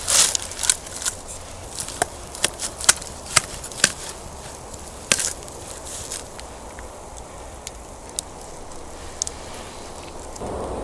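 Wood campfire crackling: irregular sharp pops and snaps from the burning wood, thick in the first few seconds and sparser later, over a low steady hiss.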